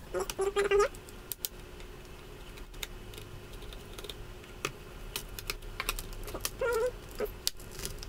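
Scattered light clicks and taps of a small screwdriver and screws against the plastic underside of an HP Pavilion dv6 laptop as the hard-drive cover screws are undone.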